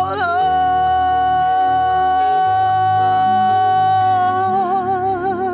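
Worship music: a singer holds one long sung note over sustained instrumental chords, with vibrato coming into the note near the end.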